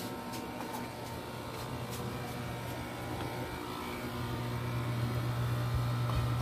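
A steady low engine hum from a vehicle, growing louder about four seconds in. A soft low knock near the end as a steel bowl of kibble is set down on concrete.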